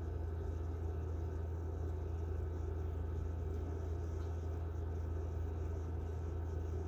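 A steady low hum with faint even background noise, unchanging throughout: room tone without speech.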